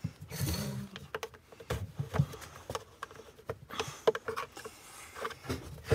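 Irregular clicks, knocks and scrapes of tools and plastic housing parts as a Wagner Control Pro paint sprayer is being taken apart.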